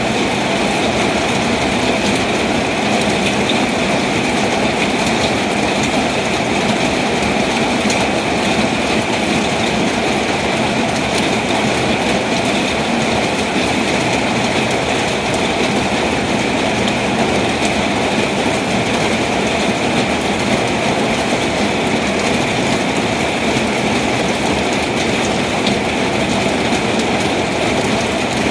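Heavy rain pouring down steadily during a storm, a dense even wash of noise with fine patter throughout.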